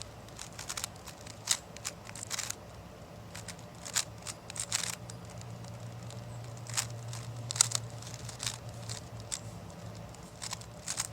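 GAN speed cube being solved by hand, its layers turning with quick runs of plastic clicks and clacks and short pauses between them.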